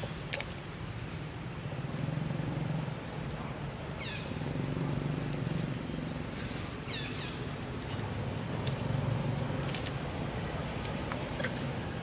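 Baby macaque giving short, high squeaks that fall in pitch, one about four seconds in and a few more around seven seconds, over a low steady rumble.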